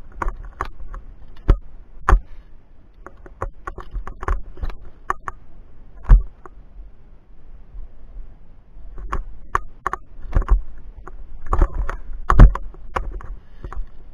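Irregular clinks, clicks and knocks of a climber's via ferrata gear: carabiners and lanyards on the steel cable and chain, with scuffs against the rock. A few sharper knocks stand out, loudest about six seconds in and near the end.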